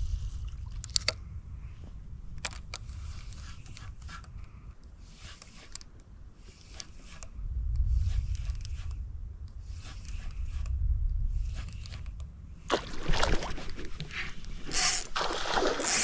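A low rumble with faint intermittent scraping, then about 13 seconds in a run of loud splashing as a hooked fish thrashes at the water's surface.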